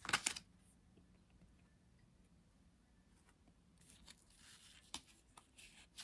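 A brief rustle of card handling right at the start, then faint crinkling of thin plastic and small clicks from about four seconds in, as a clear plastic card sleeve is pulled from its packet.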